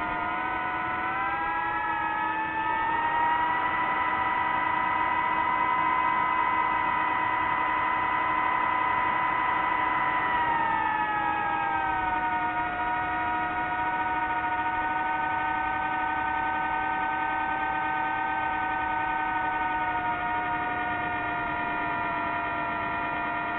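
DJI FPV quadcopter's electric motors and propellers whining in several tones at once. The whine rises in pitch a few seconds in, holds, and drops back down after about ten seconds.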